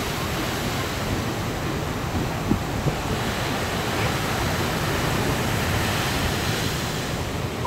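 Surf breaking and washing up a sandy beach: a steady rush of waves, with wind blowing on the microphone.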